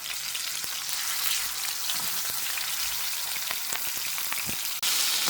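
Chicken frying in hot oil in a pan: a steady sizzle with small scattered pops, which jumps louder abruptly near the end.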